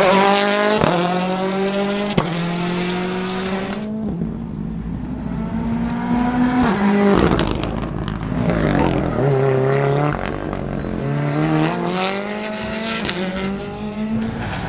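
Rally car engine at high revs, its pitch climbing and falling back again and again through gear changes. A couple of sharp cracks sound in the first few seconds.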